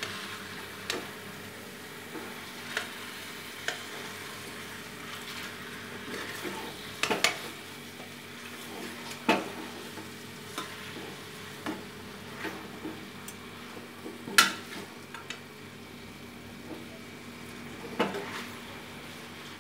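A whole masala-coated chicken sizzling in oil in a nonstick frying pan while a metal spoon scrapes and knocks against the pan, turning the chicken over halfway through cooking. The knocks are scattered and sharp, the loudest a little after the middle.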